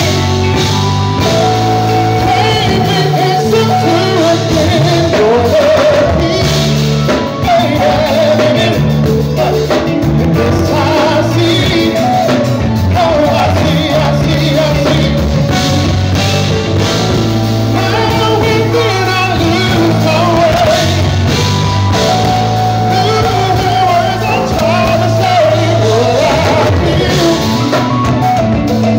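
Live band performing: a man sings lead into a handheld microphone over a drum kit, electric bass and keyboards, with the melody wavering in long held phrases.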